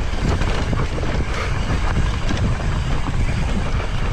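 Wind buffeting the microphone as a mountain bike descends a dirt trail at speed, with the tyres rumbling over the ground and scattered small knocks from the bike.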